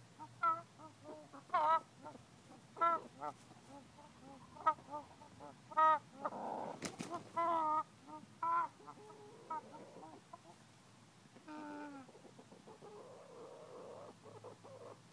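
Ameraucana hens clucking in short pitched calls about a second apart. Between them come stretches of raspy, breathy noise, one around the sixth second and a longer one from about twelve seconds in, from a six-month-old hen that is wheezing.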